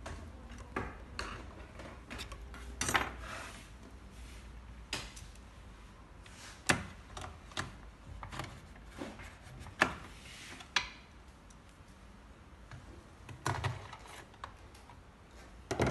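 Irregular clicks, taps and knocks of plastic housing parts and tools being handled during reassembly of a Medtronic IPC endoscopy console. A screwdriver is worked against a screw near the end, and there are a few sharper knocks about seven and ten seconds in.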